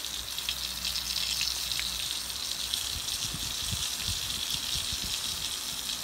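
Pork belly frying in hot oil in a pan: a steady sizzling hiss with faint scattered crackles.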